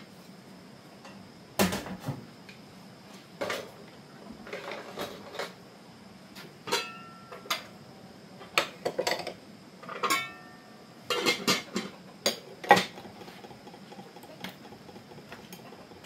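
Dishes and cutlery clinking and clattering as they are washed up by hand: irregular knocks and clinks, a few ringing briefly, the loudest clatter about three-quarters of the way through.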